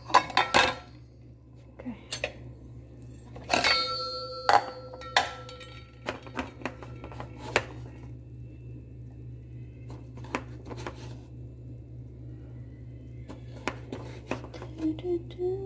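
Metal spoon and plastic measuring scoop clinking and scraping against a stainless steel mixing bowl and a powder canister. Scattered sharp clicks, with one strike about four seconds in that leaves the bowl ringing for over a second. A steady low hum runs underneath.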